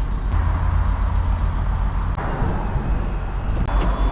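A few sharp clicks and knocks of the steel skid plate and its clips being handled and lined up under the vehicle, over a steady low rumble. A faint high squeal falls in pitch between the second and third click.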